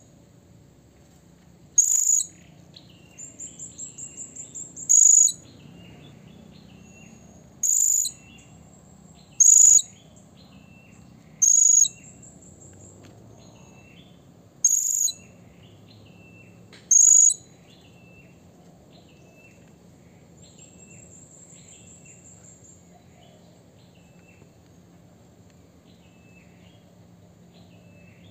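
Male blue-crowned hanging parrot (serindit) calling: seven short, sharp, very high-pitched calls about two to three seconds apart, with a fast trill between the first two. The calls stop about two-thirds of the way through, leaving soft high chirps and a faint trill.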